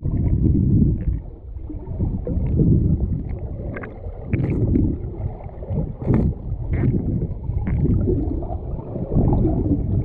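River water rushing and gurgling past a submerged camera in the rapids, heard muffled and low, surging and easing. A few sharp ticks, as of gravel or rocks knocking, come through in the middle.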